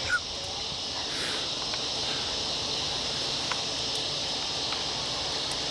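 Steady high buzzing chorus of insects, with a few faint ticks.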